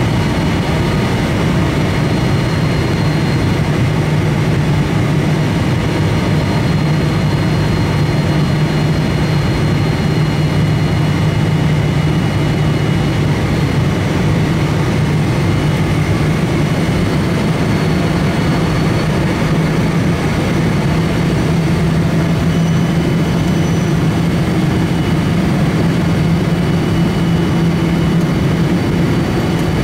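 Jet airliner cabin noise in flight: a steady drone of engines and rushing air with a low hum underneath.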